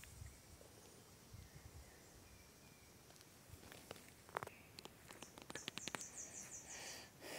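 Faint riverbank ambience. In the second half come a scatter of sharp clicks and knocks, and a quick high-pitched trill of about eight notes in a second, near the end.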